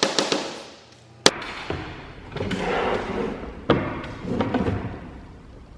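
Several quick mallet knocks on plywood, then a single loud knock, followed by wooden bumps and knocks as a plywood panel is handled and moved.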